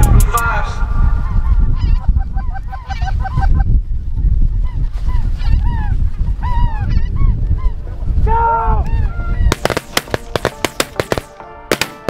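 A flock of snow geese honking overhead: many short, high, yelping calls overlapping, with wind rumbling on the microphone. Near the end comes a quick run of sharp clicks.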